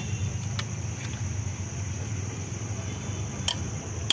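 Light metallic clicks of a Torx socket and extension bar being worked on a cylinder head bolt, with a sharper click about three and a half seconds in and a louder cluster of clicks at the end, over a steady low hum.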